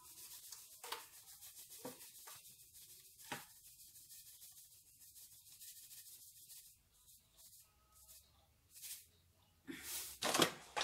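Quiet rustling and handling of a bag of sugar, with a few soft knocks and a louder burst of rustling near the end.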